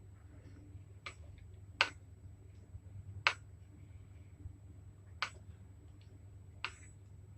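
Eating sounds while eating noodles: five sharp clicks and smacks at irregular intervals, from the mouth or from a utensil on the dish, over a low steady hum.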